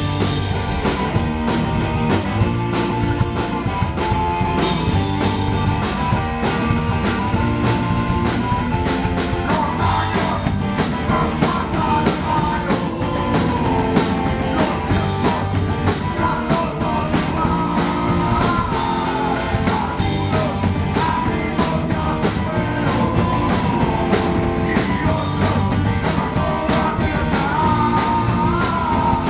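Live rock band playing: electric guitar, electric bass and drum kit, with a singer's shouted vocals. About a third of the way in, sharp drum hits begin to mark a steady beat about twice a second.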